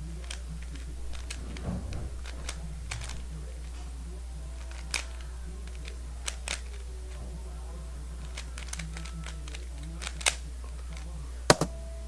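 Dayan Guhong 3x3 speedcube, lubricated with 20 wt shock oil, being turned fast in a speedsolve: irregular plastic clicks and clacks of its layers snapping round. Two louder clacks close together near the end, over a steady low hum.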